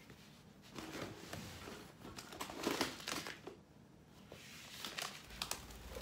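A packet of bird seed being picked up and handled, its packaging crinkling and rustling in uneven bursts, with a few sharp crackles near the end.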